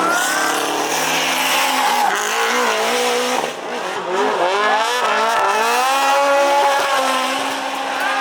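Rally car engine revving hard under load, its pitch climbing and falling several times with a brief dip about three and a half seconds in.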